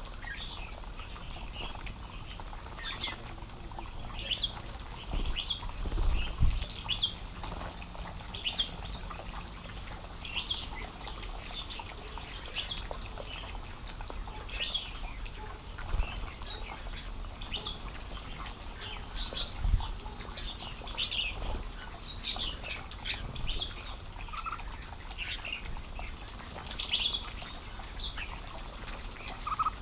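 Bulbuls calling around a bush pond: short sharp notes repeated every second or two. A few soft low thumps break in now and then.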